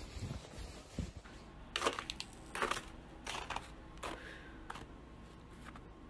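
Footsteps crunching through deep fresh snow, about seven crunches less than a second apart, starting about two seconds in.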